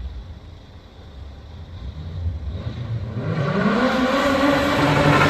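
Car engine running low at first, then from about halfway in the revs rise and it grows much louder, pitch climbing and then holding.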